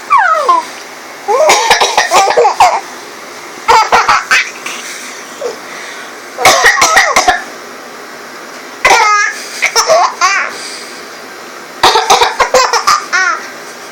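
A woman coughing in short fits, with a baby laughing in reply, in about six rounds with short pauses between them.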